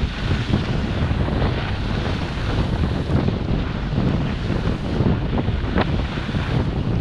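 Wind buffeting the microphone of a head-mounted GoPro during a fast ski descent, with skis swishing over snow. The noise is steady, heavy and low throughout, with a sharper swish about six seconds in.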